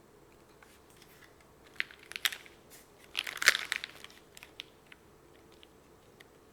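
Typing on a gasket-mounted mechanical keyboard with an aluminium plate, Gateron x SW Modern Gray linear switches and GMK Rudy keycaps: scattered single keystrokes, a quick run of presses about three seconds in that is the loudest part, then sparse presses again.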